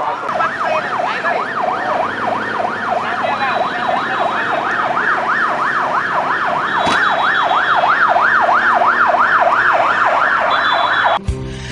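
Ambulance siren in a fast yelp, its pitch sweeping up and down about three times a second, cut off suddenly near the end.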